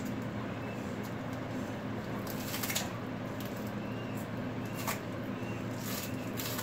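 Kitchen scissors snipping fresh green shallots, a few short crisp cuts over a steady low hum.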